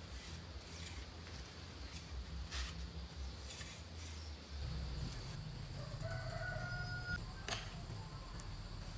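A rooster crows once, faintly, about six seconds in, over a few short scraping strokes.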